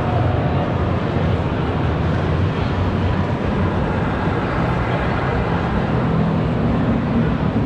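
Steady low rumble of a busy exhibition hall: crowd hubbub and hall noise blended into one continuous din, with no single voice standing out.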